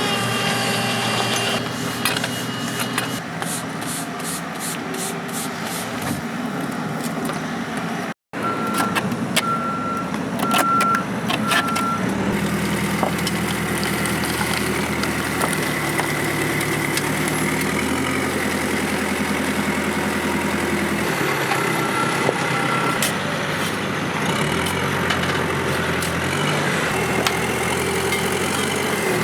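Heavy diesel machine's engine working, its pitch stepping up and down under changing load, with a reversing alarm beeping at an even pace twice, about nine seconds in and again around twenty-two seconds in.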